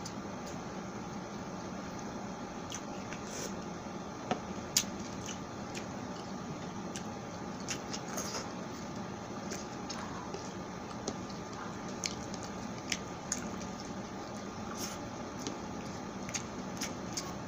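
Close-miked eating of pork sisig with rice by hand: wet chewing and mouth smacks with scattered sharp clicks, the loudest two about four and five seconds in, over a steady low hiss.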